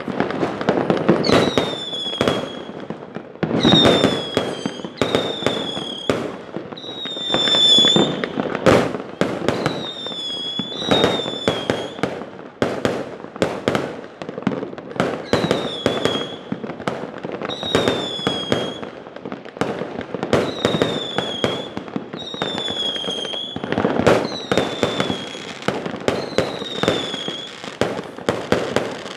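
Whistling rocket fireworks going off one after another: more than a dozen short whistles, each falling slightly in pitch, over a dense run of sharp bangs and crackling pops.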